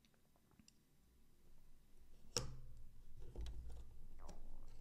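Small metal clicks and handling noise from a folding knife being pressed together by hand, its handle half pushed down over the pivot and standoffs, with one sharper click about two and a half seconds in. The handle half is not seating fully and stays a little raised at the pivot.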